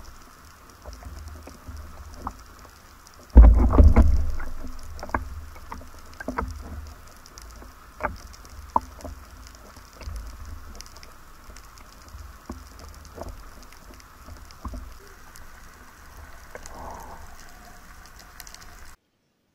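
Sea water sloshing around an underwater camera just below the surface while a spearfisherman handles his catch, with many scattered sharp clicks. A loud thump about three and a half seconds in dies away over a second or so.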